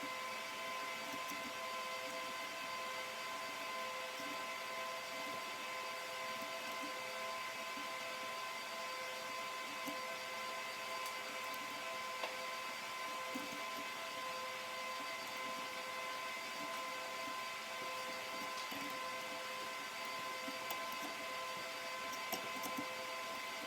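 A steady, unchanging machine-like hum with a clear pitch, with a few faint small clicks scattered through it.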